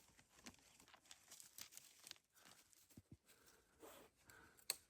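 Near silence with faint scattered scratching and small clicks of a dog's claws digging at soil and stones, one sharper click near the end.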